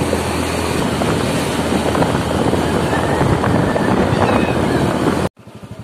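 Motorcycle riding on a road: the engine running under heavy wind noise on the microphone. Near the end it drops suddenly to a much quieter, evenly pulsing engine sound.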